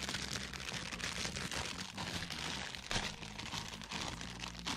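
Crinkling and rustling as the kit's packaging and plastic parts are handled, a run of small irregular crackles.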